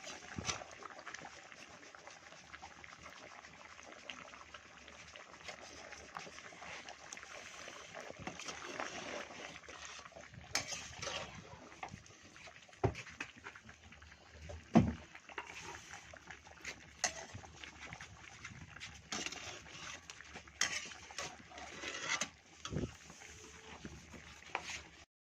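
Cooking in a pan for chicken karahi: a steady hiss, with scattered clinks and knocks of a utensil against the pan, the loudest knock about fifteen seconds in.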